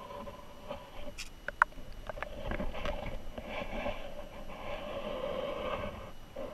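Muffled rushing and gurgling of river water heard through a submerged camera, with a couple of sharp clicks about a second and a half in, after which the rushing grows louder for a few seconds.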